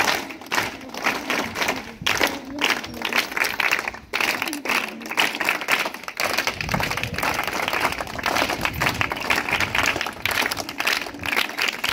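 A large group of schoolchildren clapping their hands together in a rhythmic scout 'round claps' routine, many quick claps in succession.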